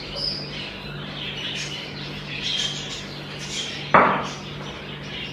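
A small bird chirping over and over in short high calls, with a single sharp clack about four seconds in as a dish is set down on the counter, and a steady low hum underneath.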